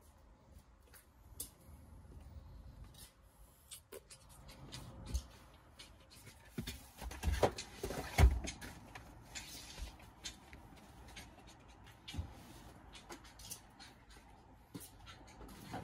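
Belongings being handled and moved around in a storage unit: scattered knocks, clatter and rustling, with the loudest thuds about seven and eight seconds in.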